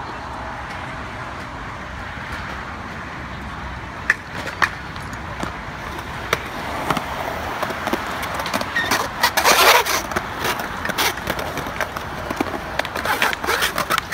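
Skateboard wheels rolling on concrete, with a few sharp clacks of the board hitting the ground. A louder scraping rush comes about two thirds of the way through, and quick clacks follow near the end.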